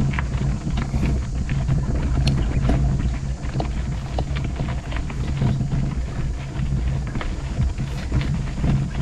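Mountain bike climbing a rocky dirt trail: tyres rolling over gravel and stones with frequent small clicks and rattles, over a steady low rumble of wind on the microphone.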